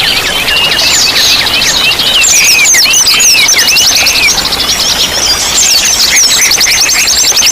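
Several small songbirds singing at once, a dense mix of quick slurred whistles and chirps, over a steady rush of running water. A fast, even trill at the start fades within the first second and comes back near the end.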